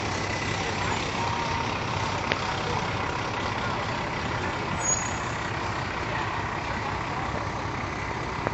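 Diesel engines of fire trucks running steadily as the trucks roll slowly past in a line.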